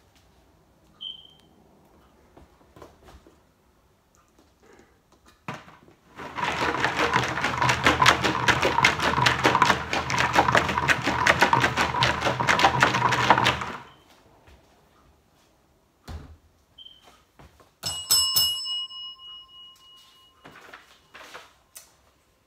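Folded paper entry slips shaken hard inside a large plastic water jug: a dense rattle lasting about seven seconds. Near the end, a single ring of a desk call bell, followed by paper rustling as a slip is handled.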